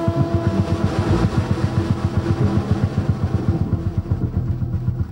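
Jazz drum kit playing a fast rolling ending on drums and cymbals, about eight strokes a second, as the tune closes; a held horn note fades out over the first couple of seconds.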